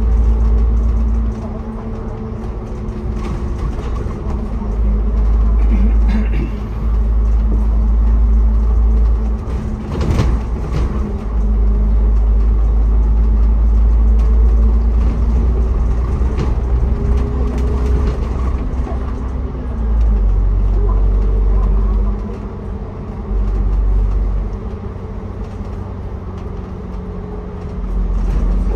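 Ride noise of a moving city bus or tram heard from on board: a deep rumble that swells and eases as it goes, steady motor hums that shift in pitch, and a sharp knock about ten seconds in.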